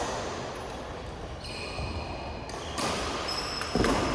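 Badminton rally in a sports hall: a couple of sharp racket hits on the shuttlecock near the end, with high shoe squeaks on the court floor and the echo of the hall.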